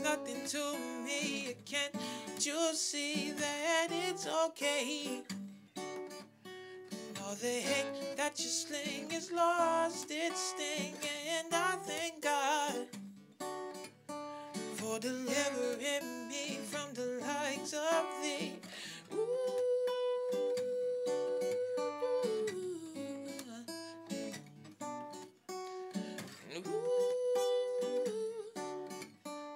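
A man singing with quick, wavering vocal runs over an acoustic guitar, holding one long steady note about two-thirds through and a shorter one near the end.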